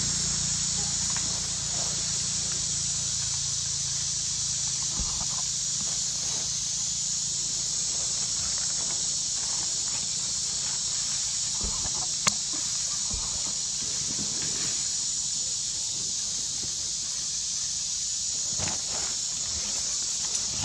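Steady high-pitched insect drone, with a few faint rustles and one sharp click about twelve seconds in.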